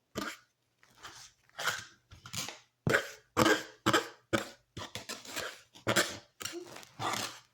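A person coughing repeatedly in short, breathy bursts, about two a second.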